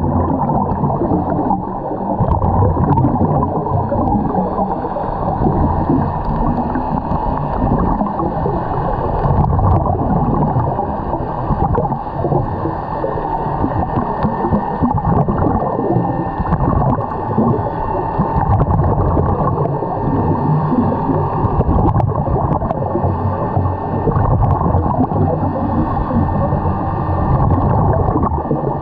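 Steady, muffled underwater rumble with gurgling, picked up by a camera submerged with the scuba divers.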